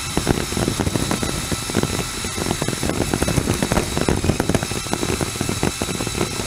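LEGO XL motors of a rappel mechanism running close to the microphone, a dense irregular crackle and rattle over a faint steady whine.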